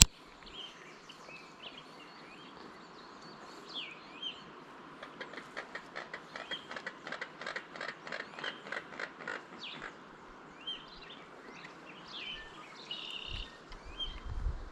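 Small birds chirping now and then, with a run of rapid clicking, about four clicks a second, for several seconds in the middle.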